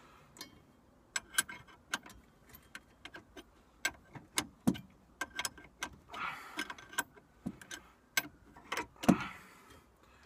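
Open-end wrench clinking against the nut and steel body of a quick-disconnect sway bar link as it is turned a little at a time: an irregular run of sharp metal clicks and taps, the loudest about nine seconds in.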